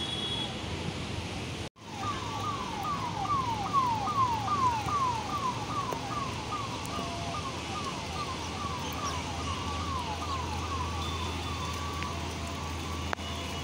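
Emergency vehicle siren on the traffic below: a fast repeating yelp of falling tones, about two or three a second, starting about two seconds in and fading near the end. It sounds over a steady hiss of traffic and rain.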